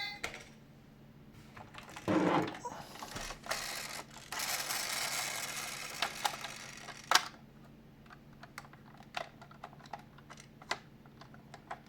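Scattered light plastic clicks and taps from a toy ambulance minicar being handled, with a short thump about two seconds in and a few seconds of rubbing noise about four seconds in.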